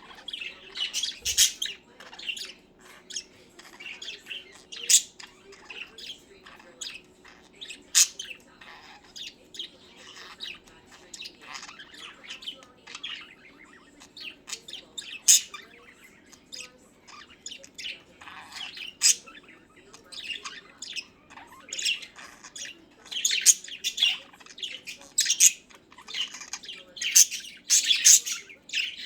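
Pet budgerigars chattering and squawking in many short, high calls, busier in the last several seconds.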